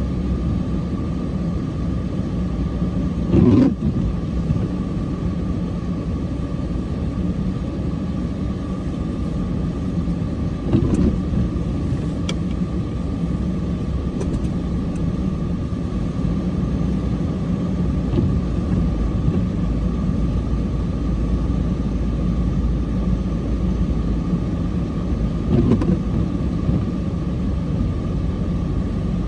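Cummins diesel truck engine running steadily, a continuous low drone with a steady hum on top. Three short thumps come through: one a few seconds in, one about a third of the way through, and one near the end.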